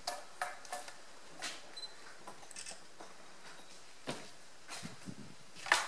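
Scattered light clicks and knocks of someone moving about and handling things at a workbench, with the loudest knock just before the end.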